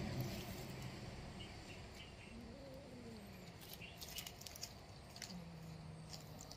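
Faint crackles of dry leaves under kittens' paws, in a cluster about four seconds in. A low drawn-out tone rises and falls a little after two seconds, and another low tone holds steady near the end.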